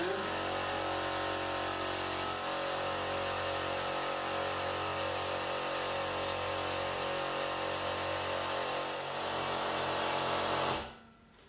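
Ride Tech air suspension's small electric air compressor running steadily, a hum over a hiss, while it fills the system's air tank. It cuts off suddenly near the end.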